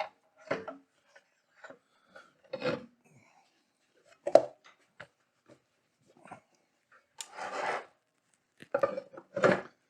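A portable band saw being handled and set onto a table to test its fit: scattered knocks and clunks, with a longer scraping slide about seven seconds in.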